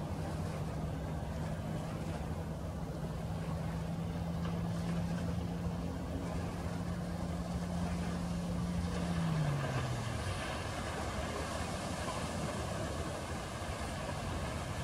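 Honda outboard motor driving a 19-foot Alumaweld Stryker aluminum boat at planing speed as it approaches and runs past. A steady engine note drops in pitch about nine seconds in, and the rush of the hull and spray grows louder near the end.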